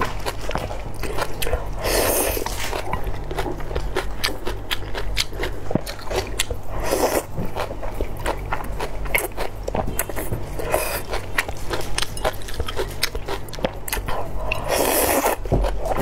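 Close-up eating sounds of a person slurping slippery clear noodles in sauce and chewing: a run of small wet mouth clicks, with a few longer, louder slurps as strands are sucked in.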